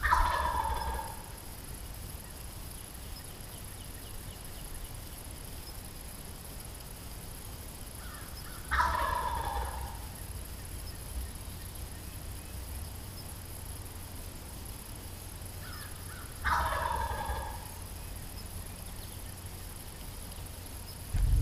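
Wild turkey gobbler gobbling three times, about eight seconds apart, each gobble lasting about a second. The tom is strutting and gobbling while hung up short of the decoys.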